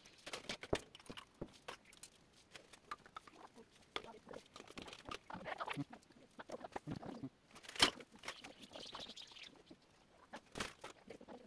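Irregular small taps, clicks and light scrapes from handling a pencil, an eraser and a sketchbook on a wooden table, with one sharp knock a little after halfway.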